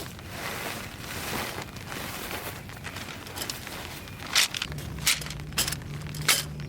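Rustling and handling noises, then four sharp clicks or knocks near the end, with a low steady hum coming in about two-thirds of the way through.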